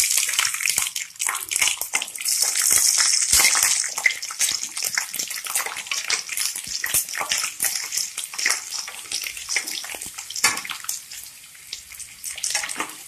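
Peeled garlic cloves sizzling and crackling in hot oil, loudest in the first few seconds and then settling down.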